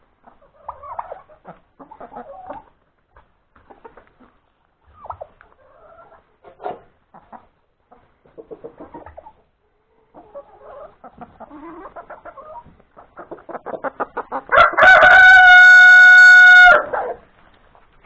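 Chickens clucking on and off, the clucks quickening, then one loud, long, steady crow from a rooster, about two seconds, near the end.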